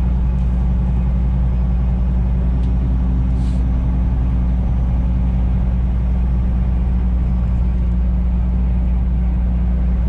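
Semi-truck's diesel engine droning steadily, heard from inside the cab while cruising, with tyre and road noise.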